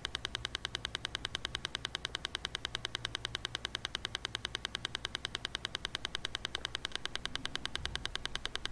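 Rapid, steady ticking: short, evenly spaced clicks several times a second, with a faint low hum beneath.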